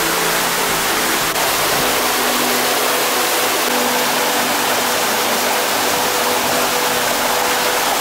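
Mountain waterfalls and cascading stream water rushing steadily close by, with a short click about a second and a half in.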